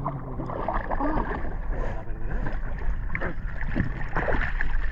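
Water splashing and sloshing against the side of a boat as a hooked sama (pink dentex) is grabbed by hand at the surface, with wind on the microphone. There are brief low voice sounds early on.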